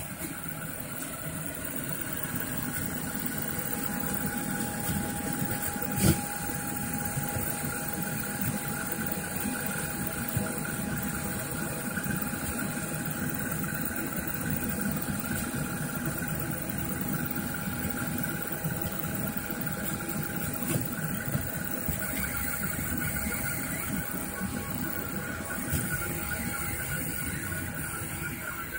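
Rostock Mini delta 3D printer running a print: its stepper motors whir steadily over a constant hum with one held tone. There is a single sharp click about six seconds in.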